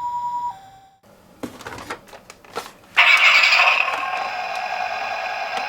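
Toy ambulance minicar's electronic two-tone hi-lo "pee-po" siren, alternating between a high and a low note, stops about a second in. A few light clicks and knocks follow. About three seconds in, a louder, rougher siren sound starts and keeps going.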